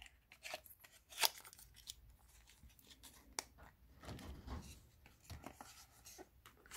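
Faint clicks and light rustling of small lip gloss tubes and their packaging being handled, in short scattered taps.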